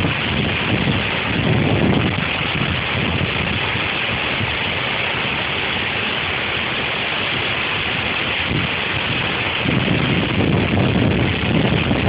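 Waterfall over 15 metres high, its falling water rushing steadily. Low wind rumble on the microphone comes in about two seconds in and again near the end.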